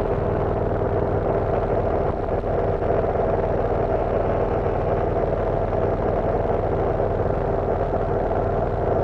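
Cessna 172 floatplane's piston engine and propeller droning steadily in flight, heard inside the cabin.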